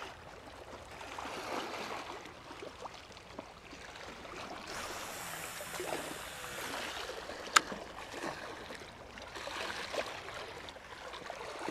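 Sea waves washing and lapping against a rocky shore, with a single sharp click about seven and a half seconds in.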